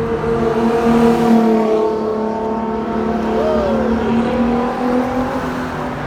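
A car engine running at fairly steady revs, rising slightly about a second in, with a short whistle that rises and falls about three and a half seconds in.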